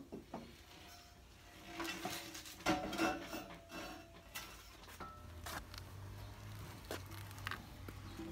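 Scattered metallic clanks and light knocks, some briefly ringing, from a hand truck's steel tube frame and welded steel toe plate as it is handled and tilted. The clanks are loudest a couple of seconds in, and a faint low rumble runs through the second half.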